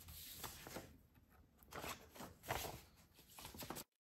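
Folded paper pages rustling and sliding as they are handled and stacked, in a few soft shuffles, before the sound cuts off abruptly near the end.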